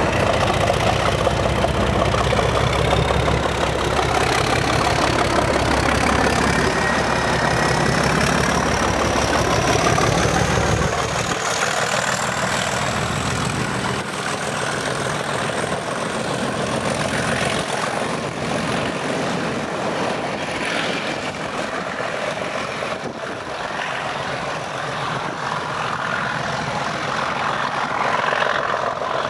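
Class 37 diesel locomotive's English Electric V12 engine working as it hauls its coaches away, with a thin whine rising steadily in pitch over the first twenty seconds or so. The deep engine sound falls away after about eleven seconds as the locomotive draws off, leaving the quieter sound of the coaches rolling past with a few faint knocks.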